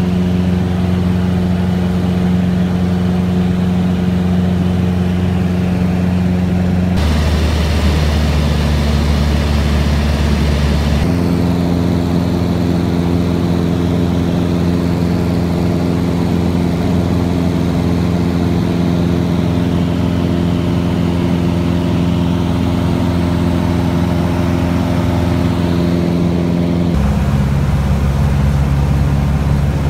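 Piston engine and propeller of a light single-engine airplane droning steadily, heard inside the cabin in flight. The drone's pitch shifts abruptly a few times.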